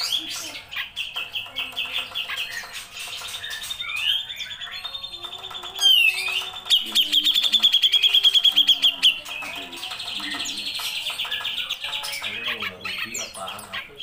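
Grey-cheeked bulbul (cucak jenggot) singing: a long run of chirps, slurred whistles and trills, loudest as a fast stutter of about eight notes a second between about six and nine seconds in.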